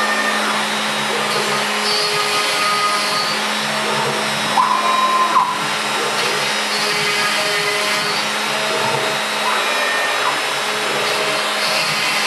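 BZT PFE 1500-PX CNC router milling into a wooden worktop: the router spindle and its dust-extraction vacuum run steadily and loudly, while the stepper motors whine and change pitch as the axes move. A brief louder whine comes about five seconds in.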